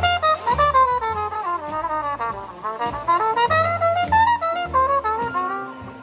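Trumpet played with a Hawkins carbon-fibre cup mute, running a quick jazz line of moving notes over a band with bass.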